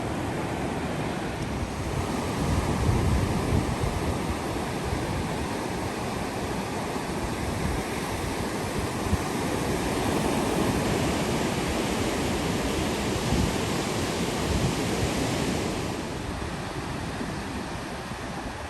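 Pacific surf washing onto a beach, with wind buffeting the microphone; the noise swells and eases, and is loudest a little past the middle.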